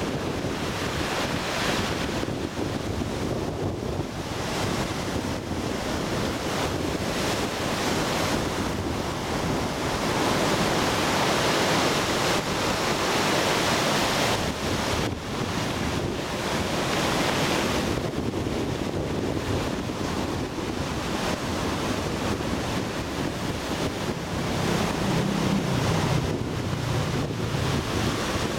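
Choppy sea waves breaking and washing onto the shore, with wind blowing across the microphone. The surf rises and falls in level as the waves come in.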